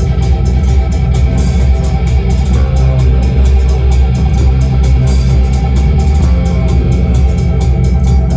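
Rock band playing live: guitar and bass guitar over drums, with a steady fast beat of drum and cymbal strokes.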